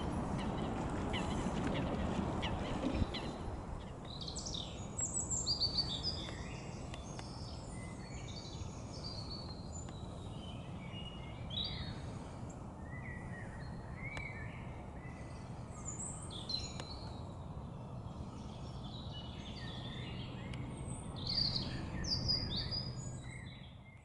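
Outdoor ambience with several small birds singing and chirping in short phrases and trills, over a steady low rumble.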